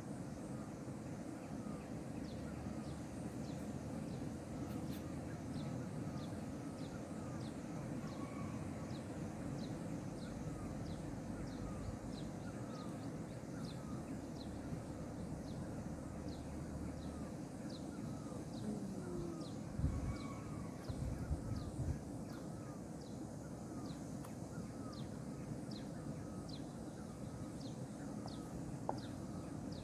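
Steady low rush of a flowing river. A bird's short high call repeats at an even pace over it, a little faster than once a second. A few low thumps come about two-thirds of the way in.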